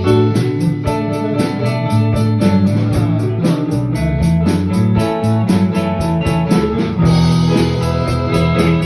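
Instrumental break in a blues-rock song: guitar playing over bass and a steady drum beat.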